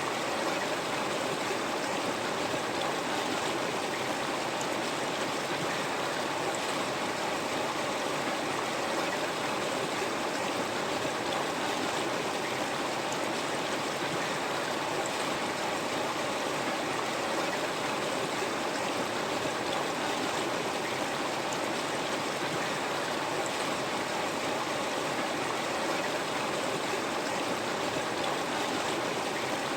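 River water flowing over rocks, a steady even rushing with no breaks or changes.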